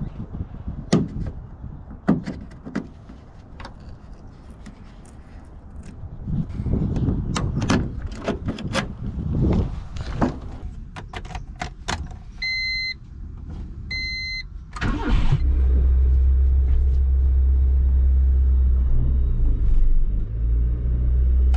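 Clicks and knocks of a Honda CRX's door handle and door being worked, with two short electronic beeps about 12 and 14 seconds in. About 15 seconds in the engine cranks and starts, then runs at a steady idle.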